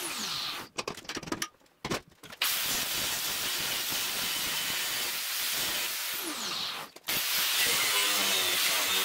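Angle grinder with a thin cutoff wheel cutting through steel plate, a steady grinding noise. It cuts out to near silence for about a second and a half early on, then runs on with a brief break near the end.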